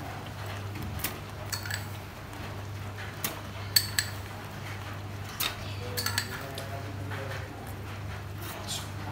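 A metal tablespoon clinking against the sugar container and the rim of an aluminium pot as spoonfuls of sugar are measured into tomato sauce: about ten light, scattered clinks, over a steady low hum.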